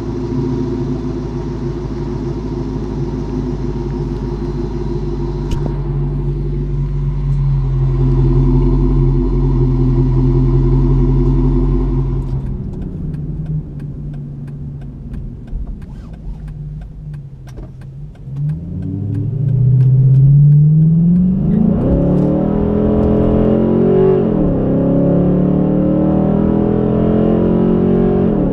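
Dodge Charger R/T's 5.7-litre Hemi V8 through a JBA cat-back exhaust, idling steadily behind the parked car. After a cut about twelve seconds in, it is heard from inside the car pulling away and accelerating, its pitch rising twice as it goes up through the gears, then holding steady.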